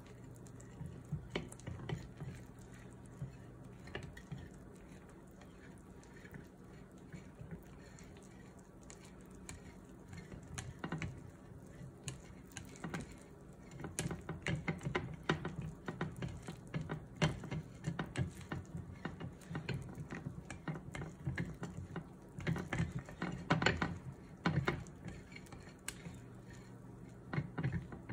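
Plastic chopsticks stirring thick flour batter in a glass mixing bowl: quick clicking and scraping against the glass, sparse at first and busier from about halfway through.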